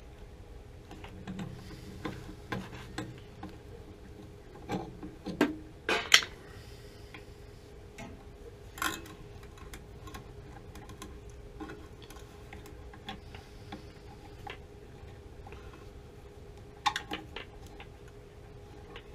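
Scattered clicks, taps and knocks of hand tools and fittings being handled on a water heater's Honeywell gas control valve, the loudest knocks coming about six seconds in. A faint steady hum runs beneath.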